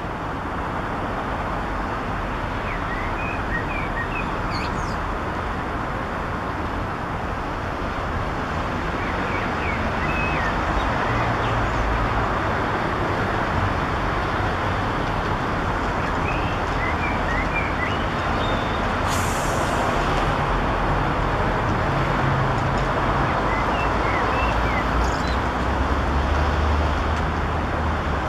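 Eurasian blackbird singing short, faint fluting phrases every several seconds over steady road traffic noise, which is the louder sound. A brief hiss comes about two-thirds of the way through.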